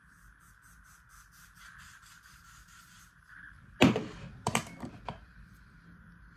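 Three sharp knocks or clatters, about four, four and a half and five seconds in, the first the loudest, over a faint steady hiss.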